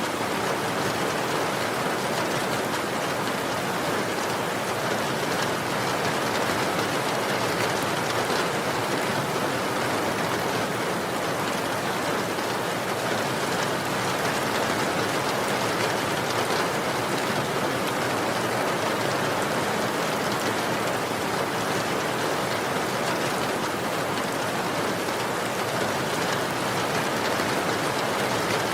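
Steady rain falling, a continuous even hiss of drops with no pauses or changes.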